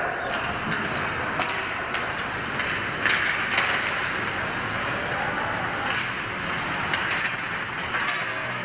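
Ice hockey play in a rink: a steady rush of skates on the ice and a murmuring crowd, with about seven sharp clacks of sticks and puck scattered through it.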